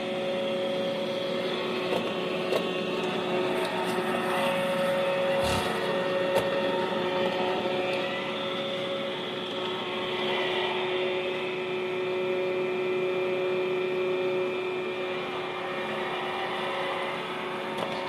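iRobot Roomba i3 robot vacuum running, heard up close from on top of it: a steady motor hum with a whine and brush-and-wheel hiss. A few light knocks, the clearest about five and a half seconds in.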